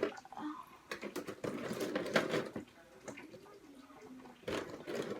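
Rustling and light clicks of craft supplies being handled. There are two busy stretches, the second starting about four and a half seconds in, with a quieter pause of about two seconds between them.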